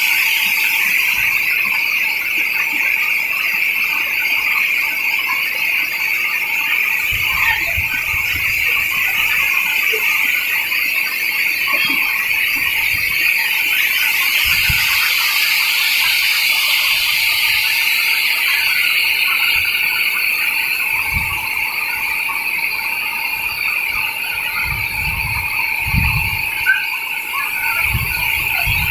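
Loud, steady, high-pitched drone of an insect chorus in tropical forest, unbroken throughout, with a few brief low bumps in the second half.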